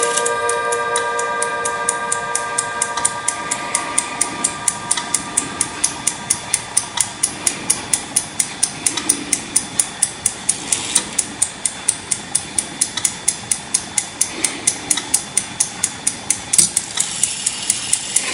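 Giraud pendulette movement ticking steadily, about four ticks a second. The last notes of its five-tone chime ring on at the start and fade out.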